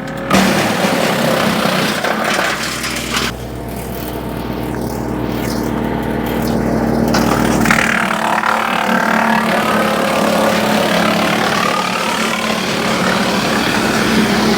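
Woodmaxx WM8H tractor PTO-driven wood chipper running under a steady engine hum, chewing through brush drawn in by its self-feed rollers. The sound changes about three seconds in and again near eight seconds as the load shifts.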